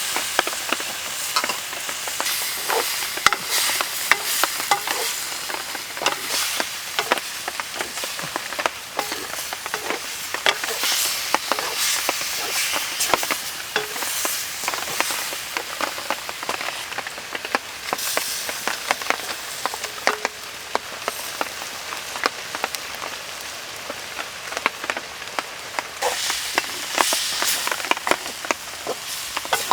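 Food stir-frying in a hot pan: a steady sizzle with frequent sharp clicks and scrapes of the stirring utensil against the pan. The sizzle swells louder near the start and again near the end.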